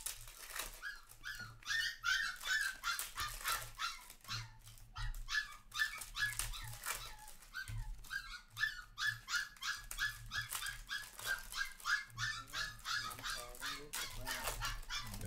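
A dog whining and crying in a rapid string of short high cries, several a second, that keep on without a break.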